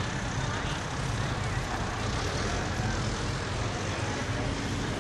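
Farm tractor engine running steadily as the tractor drives across the track, a low even drone.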